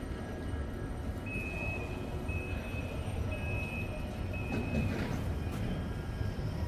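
An electronic warning beeper sounding four even, high beeps, about one a second, over a steady low rumble of railway and construction-site noise.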